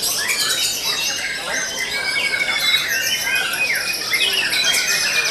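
Many caged songbirds singing loudly at once in a dense, overlapping chorus of varied whistles, trills, chirps and fast rattling notes.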